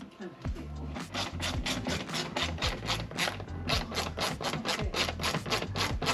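Snap-on 120-tooth ratchet clicking as it is worked back and forth on a bolt, in quick, evenly repeated strokes several times a second.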